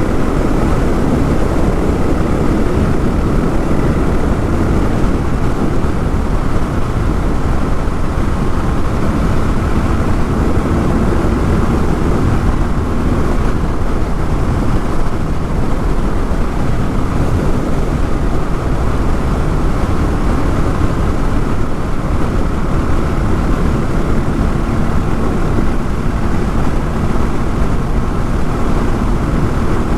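Honda XR650L single-cylinder motorcycle engine running at a steady pace while riding, with wind and road noise on the microphone.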